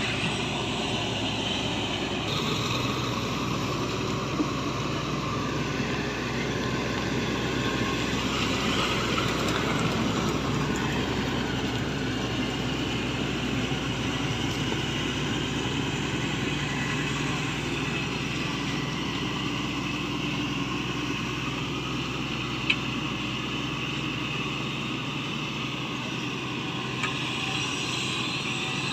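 Shantui excavator's diesel engine running steadily, with one short sharp knock about two-thirds of the way through.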